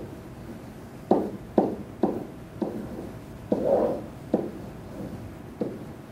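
Writing on a SMART Board interactive whiteboard: six short knocks as strokes land on the board's surface, and a longer scrape about three and a half seconds in as a line is drawn across it.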